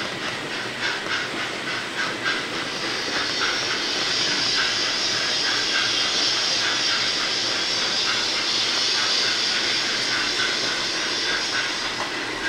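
Hornby OO-gauge 8F model locomotive and its wagons running on the layout track: a rhythmic clicking of about three a second, giving way about three seconds in to a steady hiss as the locomotive passes close, with the clicking returning near the end as the wagons go by.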